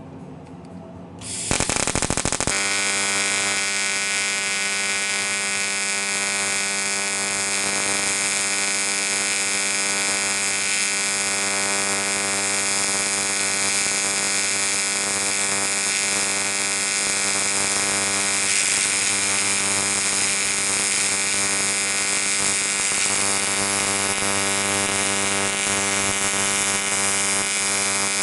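AC TIG welding arc on aluminium: a brief crackle as the arc strikes about a second and a half in, then a steady, even buzz as the weld runs around the joint.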